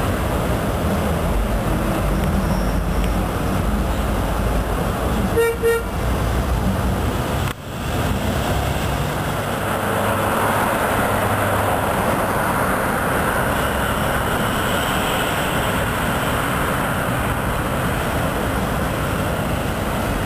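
Diesel locomotive rumbling steadily, with one short single-note horn toot about five seconds in.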